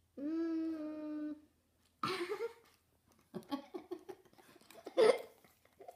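A person's voice: a held hum of about a second, then breathy giggles and short bursts of laughter.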